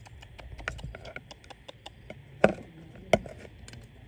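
Scattered light clicks and taps, with two sharp knocks about two and a half and three seconds in.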